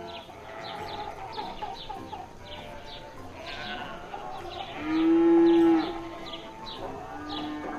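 A cow mooing: one long, loud moo about five seconds in and a shorter, quieter one near the end, over high chirps repeating in the background.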